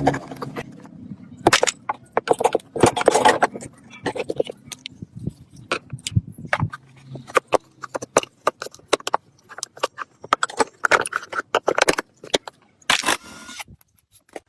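Metal tools and parts clinking, knocking and scraping in irregular handling, with a few short scraping bursts among the clicks and a faint low hum beneath.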